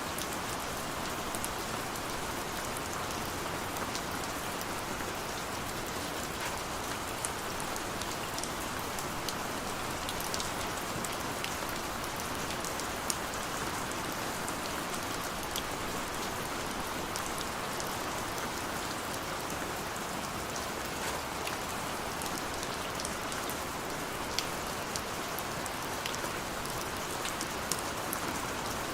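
Steady rain falling on a window and city surfaces: an even hiss with scattered sharp drop ticks.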